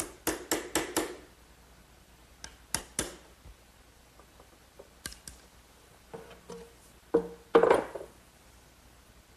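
Hand saw and chisel trimming the corners off a tongue cut on the end of wooden boards: a quick run of short sawing strokes at the start, then a few separate cuts and sharper chisel strikes, the loudest about three quarters through.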